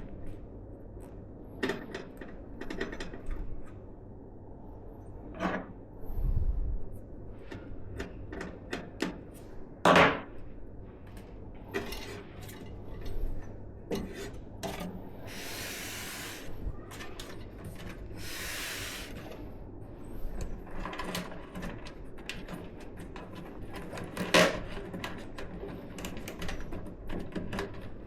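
Hands working on a desktop PC build: a run of small clicks, taps and knocks of parts and tools, the loudest about a third of the way in. Two longer noisy strokes of about a second and a half each come just past the middle, and a dull thump comes early on.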